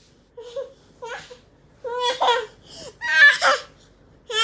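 A toddler's high-pitched cries and squeals in a series of short bursts, getting louder, with the loudest about three seconds in.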